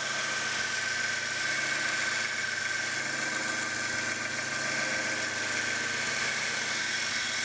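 Bench grinder with a belt-sander attachment running, with the steel head of a ball peen hammer pressed against the abrasive conditioning belt so that it throws sparks. It gives a steady hiss with a high whine over a low motor hum.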